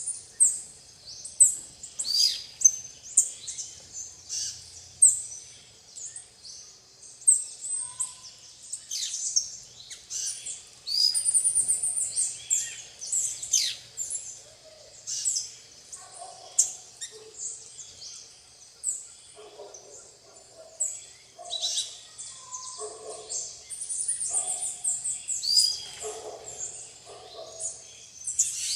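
A flock of plain parakeets giving many short, shrill, high-pitched calls, mostly sliding downward and often overlapping. Lower, rougher call notes join from about halfway through.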